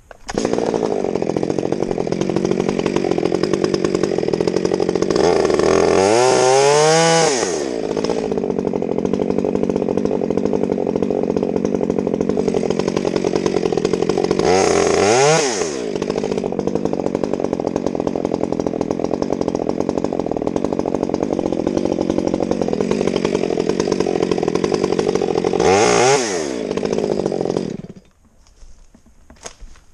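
Chainsaw running at high revs, cutting into the base of a tree trunk. The engine speed sags and recovers three times, and the saw stops near the end.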